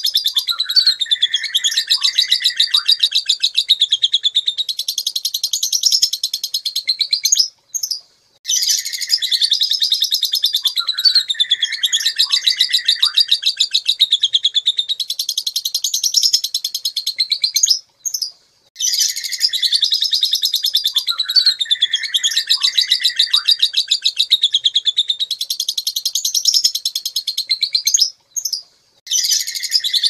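Lovebird's long, rapid chattering song (ngekek), a fast high trill with scattered lower chirps. Brief pauses come about every ten seconds, after which the same stretch of song starts over, as a looped prompting recording.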